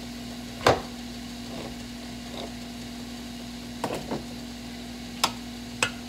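Kitchen clatter over a steady hum: about five short, sharp knocks and clicks from handling cooking utensils and seasoning containers at a stainless-steel skillet of browning ground turkey, the loudest about a second in and a quick pair near the middle.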